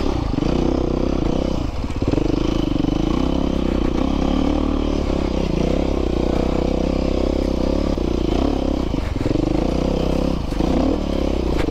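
Dirt bike engine running under load, the throttle opening and easing off, with brief drops in engine sound a few times.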